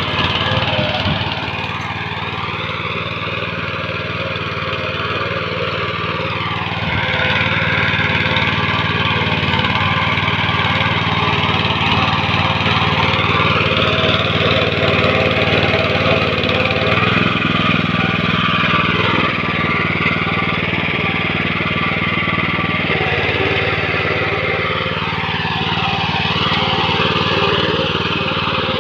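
Engine of a rotary tiller running steadily while tilling soil, its pitch wavering slowly up and down.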